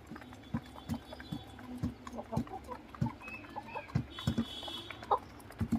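Chickens clucking softly in short, scattered calls, mixed with irregular light taps.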